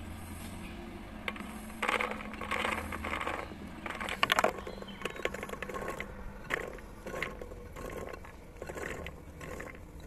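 Chickpeas poured from a terracotta dish into a clay pot, clattering and clicking against the clay. The clatter is densest and loudest about four seconds in, then individual chickpeas drop with scattered clicks.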